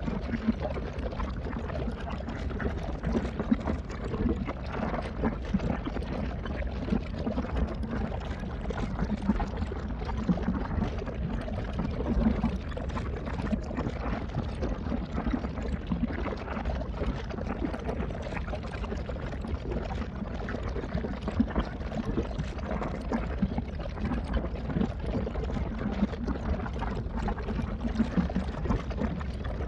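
Steady rushing, splashing water.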